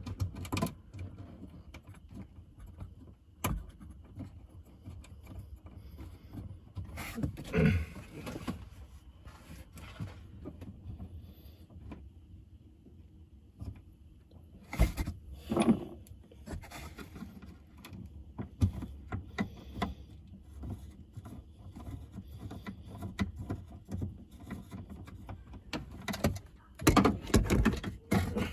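Intermittent knocks, scrapes and rattles of parts and tools being handled while wiring the winch, with louder clusters about 7 seconds in, about 15 seconds in and near the end.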